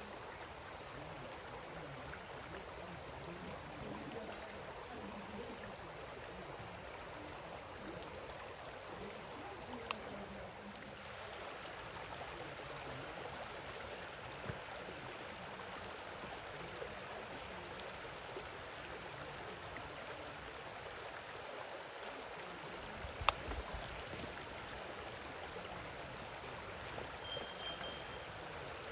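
Steady rush of a flowing stream, with a single sharp click about four-fifths of the way through.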